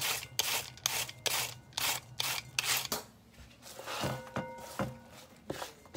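Cabbage being shredded with a vegetable peeler: rough rasping strokes of the blade across the cabbage head, about two a second. After about three seconds the strokes stop, giving way to quieter handling of the shredded cabbage with a few light knocks.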